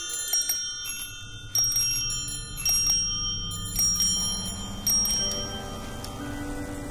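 High, bright bell-like chimes struck about five times, roughly one a second, each ringing on. Near the end, lower held musical notes come in.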